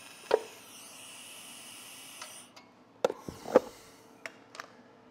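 Workshop metalwork on stainless exhaust tubing: a brief steady hiss for the first couple of seconds, then a handful of sharp metal knocks and clinks, the loudest about three and a half seconds in.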